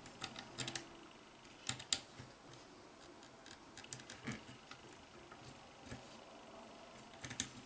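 Faint small plastic clicks and rattles as an RJ25 cable connector is handled and pushed into a port on the mBot Ranger's controller board. The clicks come in short clusters four times, the sharpest about two seconds in and near the end.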